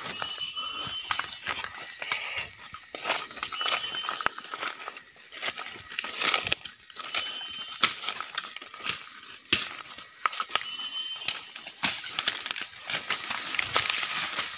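Footsteps crunching and rustling through dry leaf litter and brushing through undergrowth at a quick walk, in irregular crackles and scuffs. A steady high-pitched hum and a short high call repeating every three to four seconds sound behind it.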